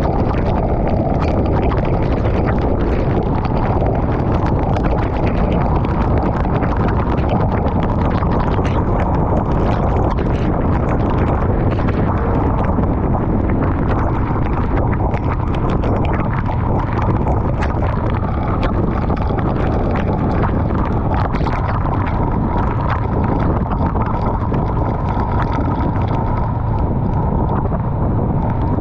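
Steady wind and road noise from a Honda Rebel 500 motorcycle riding at speed through heavy rain, with many quick taps of raindrops striking the camera.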